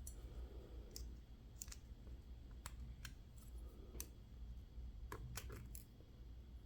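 A dozen or so faint, scattered metallic clicks and ticks of small parts being handled as a picked lock cylinder is taken apart.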